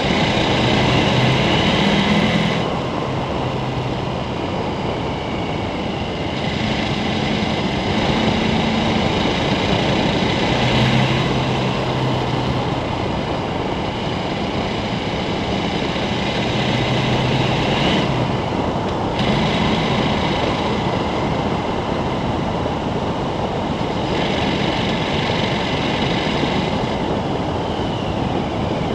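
KTM 1290 Super Adventure's V-twin engine running at road speed, under a steady rumble of wind and tyres on gravel. The engine note stands out and fades again several times as the throttle changes.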